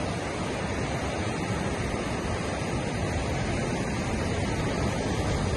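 Steady rush of Pacific surf breaking and washing up a sandy beach.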